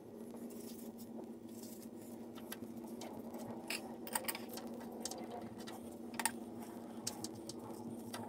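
Scattered small metallic clicks and scrapes as a change gear on an early-1950s Sheldon lathe's end gear train is worked loose by hand and slid off its stud, the sharpest clicks about 4 and 6 seconds in. A steady low hum runs underneath.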